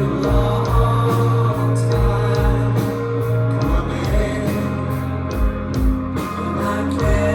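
Live rock band playing: guitars over bass with a steady kick drum beating about twice a second.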